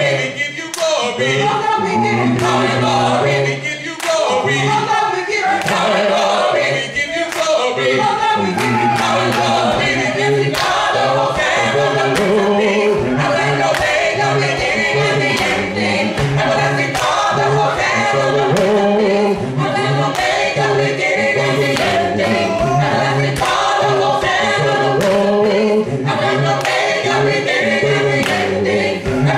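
A cappella vocal group singing a gospel praise song in harmony over a deep, rhythmic bass voice and a steady percussive beat.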